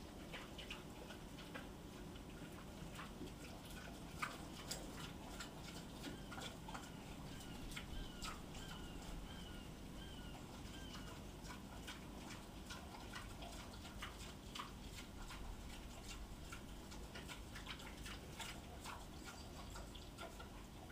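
Pigs eating from metal bowls: faint, irregular clicks and ticks of chewing and snouts knocking the bowls. A run of small high chirps comes in about a third of the way in and lasts a few seconds.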